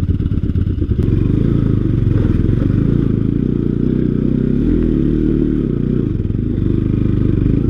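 Motorcycle engine running under load on a rough, slippery dirt track. The revs rise and then fall back about halfway through.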